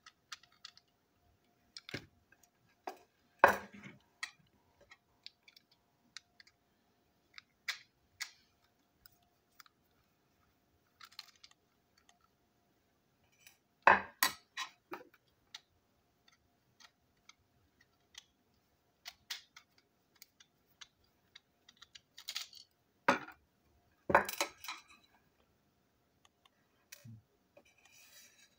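Plastic toy train engine being taken apart with a small screwdriver: scattered clicks and clacks of plastic parts and tiny screws set down on a table, the loudest a few seconds in, around halfway and near the end.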